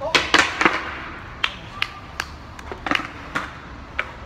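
Skateboard clattering on brick pavement: a cluster of loud clacks in the first second, then scattered single knocks and taps.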